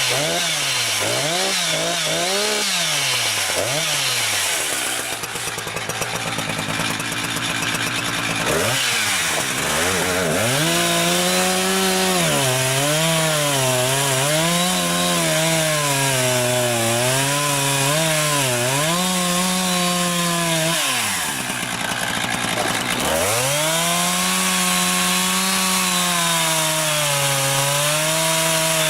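Husqvarna 359 two-stroke chainsaw running at high revs, its engine pitch swinging up and down. It drops back toward idle about four seconds in and again just past twenty seconds, then revs up again each time.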